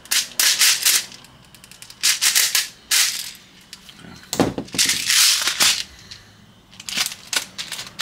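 Gas from an airsoft gas pistol magazine hissing out in five separate bursts, the longest lasting over a second, with sharp clicks and handling knocks in between.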